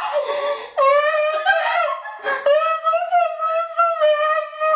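A man's mock crying: a high, wavering falsetto wail drawn out in long notes, starting about a second in with a short break in the middle, acting out someone sobbing.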